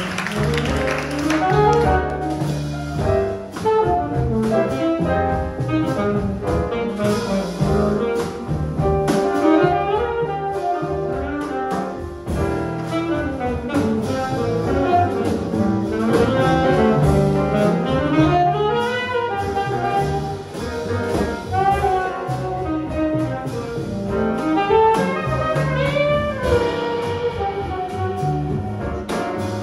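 Saxophone playing a jazz solo, a flowing melodic line with slides and vibrato, over piano, double bass and drums.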